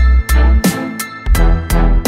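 Background music with a heavy bass beat and sharp drum hits over sustained melodic tones.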